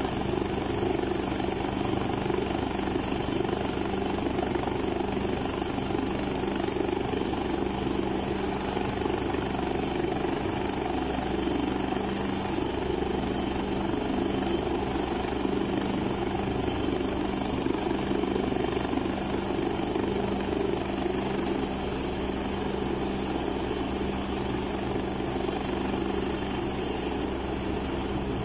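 Helicopter standing on the ground with its engines running and main rotor turning: a steady drone with a constant low hum that does not change.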